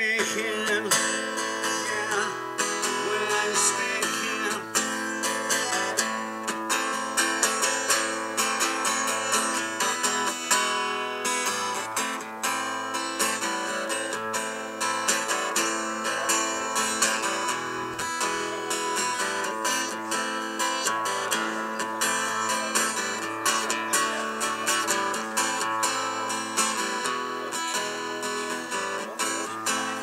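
Steel-string acoustic guitar strummed in a steady rhythm, chords ringing, with no singing over it.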